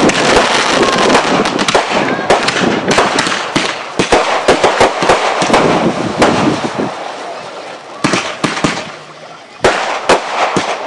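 Fireworks display: a dense run of sharp bangs and crackling, thinning out in the last few seconds with a couple of louder bangs near the end.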